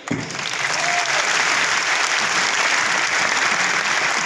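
Audience applauding, the clapping building over the first second and then holding steady.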